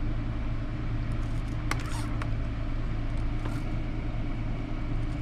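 Steady low mechanical hum in the background, with a few faint clicks.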